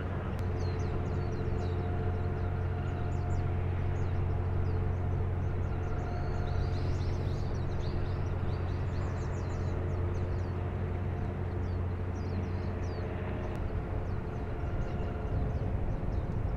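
Steady low engine drone with a constant hum, while small birds chirp in quick high notes, busiest midway through.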